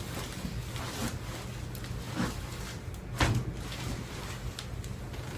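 Handling sounds during a chiropractic adjustment: light rustles on the treatment table and a sharper knock about three seconds in, over a steady low hum.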